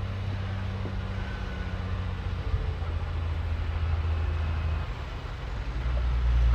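Shantui bulldozer's diesel engine running steadily with a low, even sound. It dips about five seconds in, then grows louder near the end.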